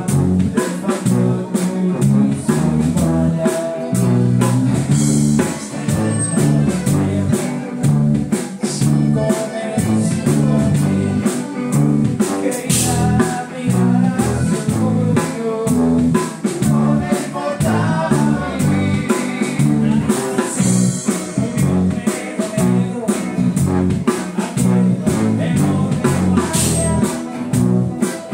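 A live band playing a song, with electric guitars, a sousaphone bass line, keyboard and drums, and some singing.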